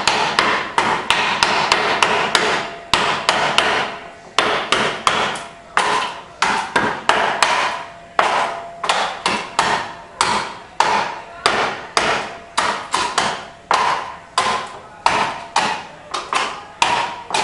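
Wooden muddler pounding ice cubes and lime in a small cup, crushing the ice with repeated sharp knocks. The strikes come fast for the first few seconds, then settle to about two a second.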